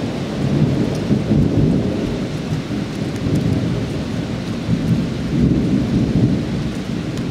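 Thunder rumbling low and long, swelling and easing several times, with rain falling.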